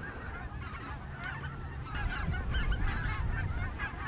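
A large flock of snow geese calling overhead, a dense chorus of many overlapping honks that grows louder about halfway through, over a low rumble of wind on the microphone.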